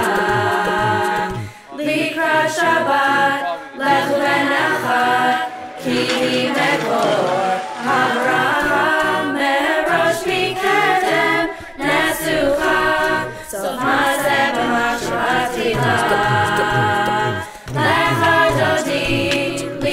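Background music: a group of voices singing in harmony, a cappella, over a pulsing bass line.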